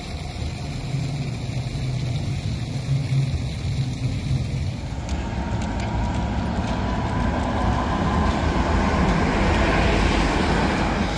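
Steady low city rumble, then a tram approaching and passing close by: wheels running on the rails with a faint, slowly rising motor whine, growing louder toward the end.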